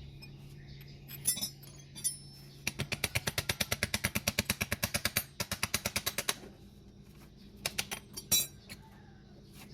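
Metal tools working on starter motor parts: a quick even run of sharp metallic clicks, about eight a second, lasting about three and a half seconds, with a few single knocks and clinks before and after.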